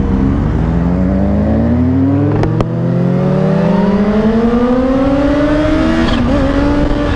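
Kawasaki Ninja H2's supercharged inline-four accelerating in first gear, its pitch rising steadily for about six seconds, around 6,000 rpm where the supercharger kicks in, then dropping at the first upshift and holding steady. Two brief clicks about two and a half seconds in.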